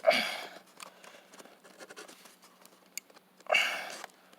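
Cardboard box and packing material handled during a ceiling fan unboxing. Small scrapes and rustles run throughout, with two louder scraping rustles, one right at the start and one about three and a half seconds in.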